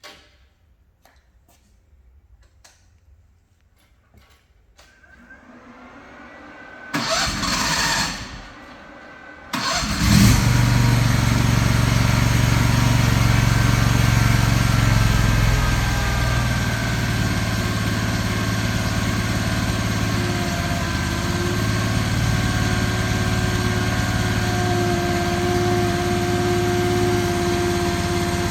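Mini skid steer's engine cranked by the starter for about a second, then cranked again and catching about ten seconds in, settling into steady running. Near the end a steady higher whine joins the engine note.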